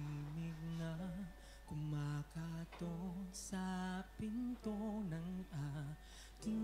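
A male vocalist singing a slow ballad live, in long held notes with a slight waver, phrase after phrase with short breaths between them.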